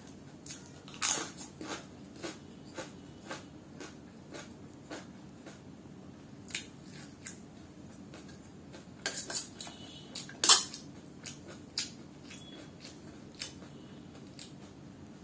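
Close-up eating sounds: crisp potato chips crunching and being chewed, with a steel spoon clinking and scraping on a steel plate of poha. Sharp crunches and clicks come scattered throughout, bunched together about nine to ten seconds in, with the loudest one about ten and a half seconds in.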